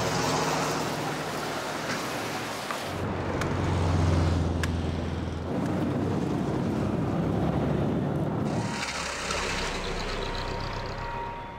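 Street traffic with cars passing close by, the engine rumble shifting as each vehicle goes past, with a few short clicks in the first half.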